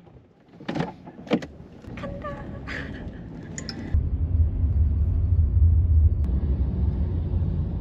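A few short clicks and knocks, then from about halfway a steady low rumble of a car driving, heard from inside the cabin.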